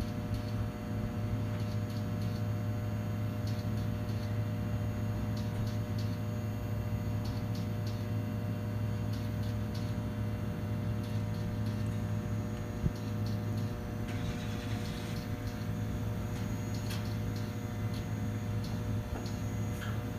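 Electrical transformer giving off a steady low hum with buzzing overtones and faint scattered ticks: an abnormal noise from the transformer.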